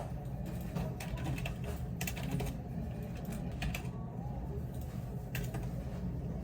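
Computer keyboard being typed on: short, irregular clicks in small clusters over a steady low hum.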